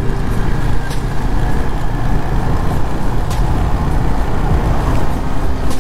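Riding noise on a moving motorcycle: a loud, steady rush of wind on the microphone, with the engine running underneath.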